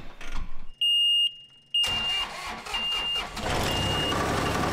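John Deere 997 zero-turn mower's diesel engine started with the key: a high warning beeper sounds about a second in, then the engine turns over and starts just before two seconds in and keeps running, with the beeper chirping three more times over it.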